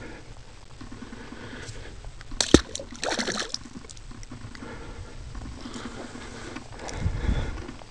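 Shallow muddy water in a mud-bogging pit being sloshed and splashed, with a sharp splash about two and a half seconds in and a duller surge near the end.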